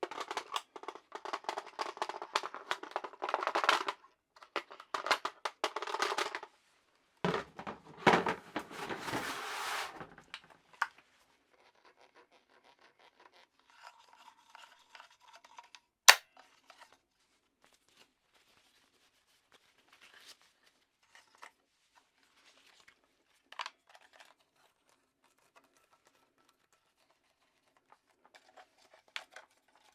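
Handling noises from a Soviet Arms 300 Blackout Krinkov (AKS-74U-style) pistol: about six seconds of dense rubbing and scraping, then a louder, rougher scrape from about seven to ten seconds in. After that come scattered light clicks, one of them sharp about sixteen seconds in.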